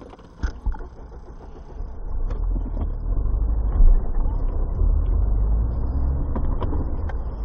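A car driving on a snowy road, heard from inside the cabin: a low rumble of engine and tyres that grows louder about two seconds in, with a few light knocks.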